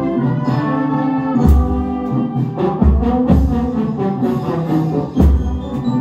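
Brass-band music with a big marching bass drum (bumbo fuzileiro) struck with padded mallets, giving deep thumps a few times against the horns.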